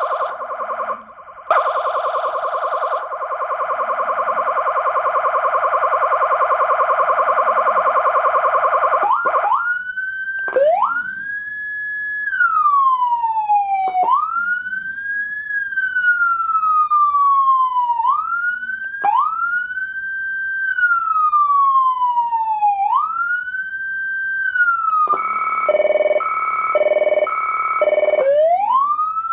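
150-watt electronic siren (150HX) sounding through a siren speaker and switched between tones. First comes a harsh, steady horn-like tone for about nine seconds, with a brief dip about a second in. Then a wail rises quickly and falls away slowly, repeating every few seconds, with a few seconds of a choppy tone pulsing about once a second near the end before the wail resumes.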